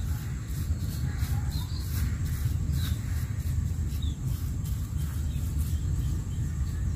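Outdoor ambience: a steady low rumble, with a few faint bird chirps.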